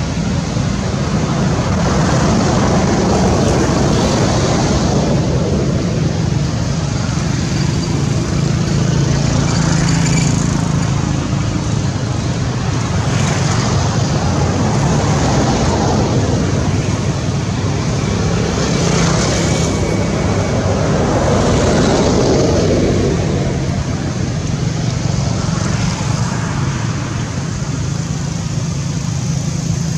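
Road traffic: a steady engine hum with vehicles passing every few seconds, swelling and fading.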